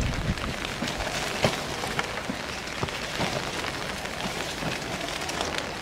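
Steady rain falling, with many sharp, irregular taps of drops landing close by.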